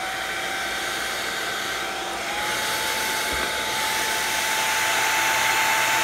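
Super old hair dryer running steadily: a motor whine over the hiss of its airflow. The whine steps up slightly in pitch about two seconds in, and the sound grows a little louder.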